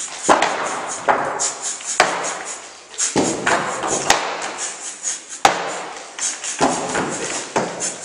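Sledgehammer blows smashing concrete blocks, about one heavy strike a second, each with a short crumbling tail.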